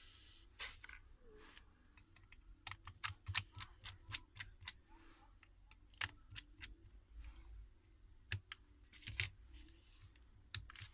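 Irregular light clicks and taps of small tools and screws on a phone's frame during reassembly, some in quick clusters.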